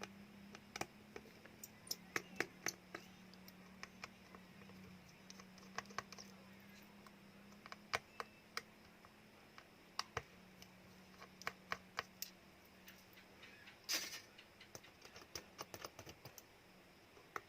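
Scattered small clicks and taps of tools against smartphone plastic and metal parts during disassembly, irregular and a few at a time, with a slightly longer scrape about fourteen seconds in. A faint steady low hum runs underneath.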